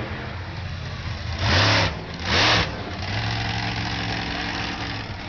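Monster truck engine running, revved hard twice in quick succession about a second and a half in, then held at a steady lower speed.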